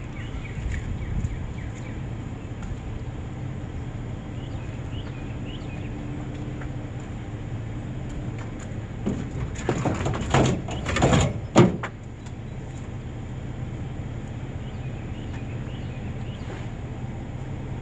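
A small truck running with a steady low hum, broken about ten seconds in by a cluster of clunks and rattles that lasts a couple of seconds and ends in one sharp bang.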